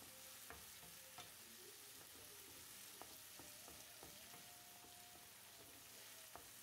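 Faint sizzle of carrots, peas, tomato and onion sautéing in oil in a frying pan, with scattered small crackles.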